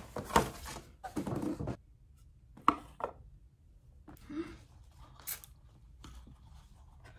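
Paper and cardboard rustling as a small white jewelry box is taken out of a paper gift bag and its lid opened, with two sharp taps about three seconds in and fainter handling after.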